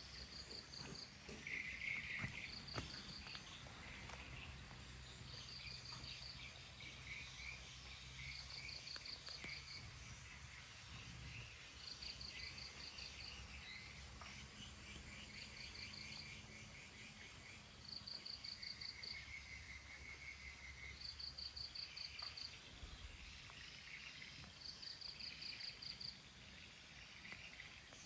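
Insects chirping: short trains of rapid, high-pitched pulses repeating every two to three seconds, with some lower trills between them.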